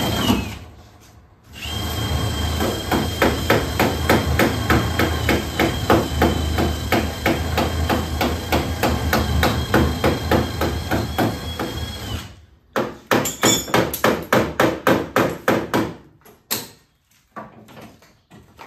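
Hammer striking a car's damaged front quarter panel in panelbeating: a fast, even run of metal blows for about ten seconds over a steady hum, then, after a brief break, a shorter run of separate blows.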